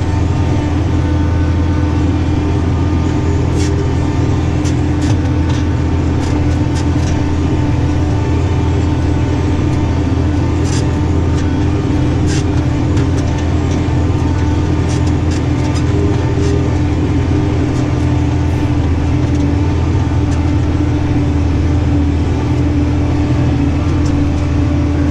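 New Holland tractor engine running at a steady working speed under load, heard from inside the cab as a constant low drone. Scattered light ticks sound over it through the middle stretch.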